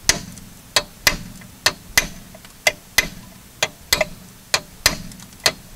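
Hammer striking a metal drift set on a rusted screw, about a dozen sharp metallic blows at roughly two a second, to shock the rust loose so the screw will turn.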